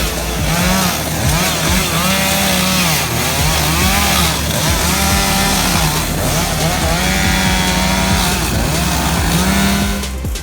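Small petrol engine revving up and down over and over, its pitch rising and falling about once a second.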